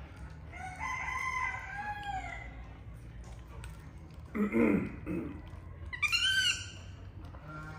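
Animal calls: a long pitched call starting about half a second in and lasting about two seconds, a loud low burst a little past the middle, and a short, high call with rising and falling pitch, the loudest sound, about six seconds in.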